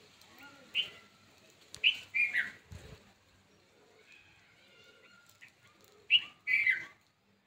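Birds chirping: a few short, loud calls about a second in, a cluster around two seconds, and two more near the end, over fainter background birdsong.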